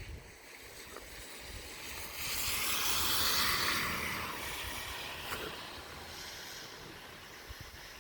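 A vehicle passing on a snowy street: a hiss of tyres that swells, peaks and fades over a few seconds.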